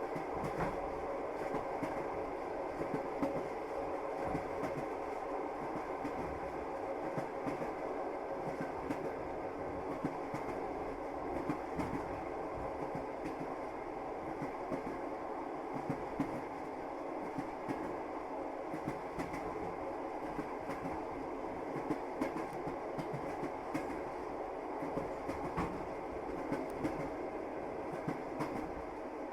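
Passenger train carriage running along the track, heard from inside: a steady rumble with the frequent clicking of the wheels over the rails.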